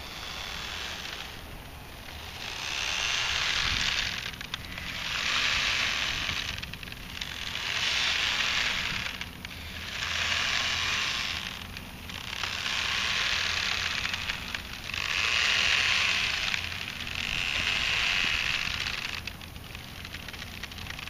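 Wave surges heard underwater in shallow lake water: a crackling, fizzing hiss that swells and fades about every two and a half seconds.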